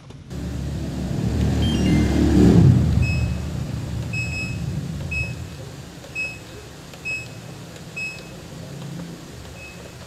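LG top-loader washing machine control panel beeping as its buttons are pressed: a short falling run of electronic notes about two seconds in, then single short high beeps roughly once a second. A low rumble runs underneath, loudest about two to three seconds in.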